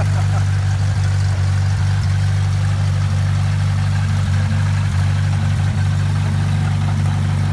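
Two-seat gyrocopter's engine and pusher propeller running steadily as it taxis, a constant low drone.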